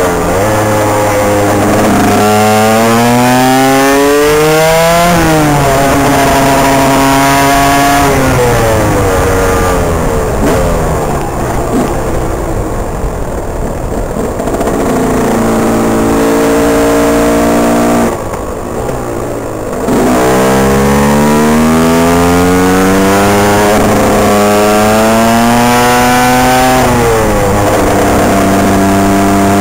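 KTM EXC 125's two-stroke single-cylinder engine under hard acceleration, its pitch climbing through each gear and dropping back at every upshift. Wind rushes over the helmet-mounted microphone. About two-thirds of the way through the engine falls away briefly, then climbs through the gears again.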